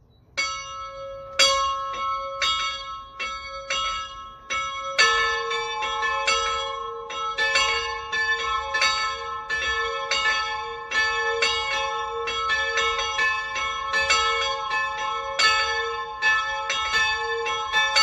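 Two Salzburg-cast bronze church bells, tuned a'' (cast 1779) and c-sharp''' (cast 1693), swinging and ringing together in a full peal. The higher bell starts alone, striking about once a second, and the lower bell joins about five seconds in. From then on their strokes overlap, each leaving a long ringing tail.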